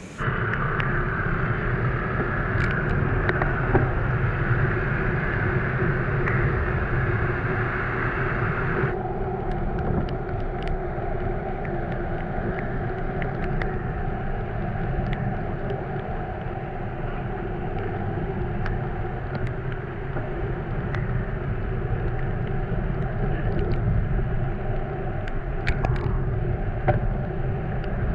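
Steady engine and road noise of a vehicle under way, with a sudden change in tone about nine seconds in.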